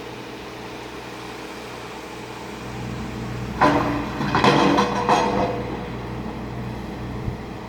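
Traffic heard from inside a car: a steady cabin hum, with a loud passing burst of vehicle noise about halfway through that lasts around two seconds.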